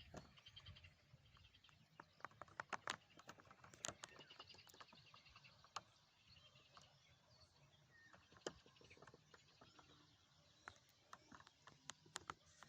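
Faint scattered clicks and taps, with small birds chirping faintly in short repeated phrases.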